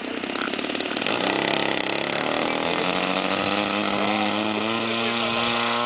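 A radio-controlled Extra 260's 30cc gas engine running at low throttle, then opened up about a second in for the takeoff run: its pitch climbs for a few seconds and then holds steady at full power.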